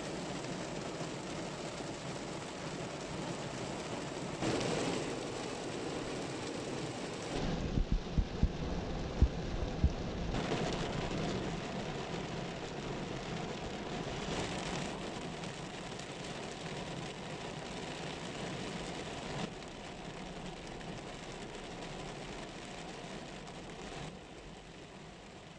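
Heavy rain pelting a car's windshield, heard from inside the car as a steady rushing hiss that fades somewhat near the end. A short cluster of low thumps comes about eight to ten seconds in.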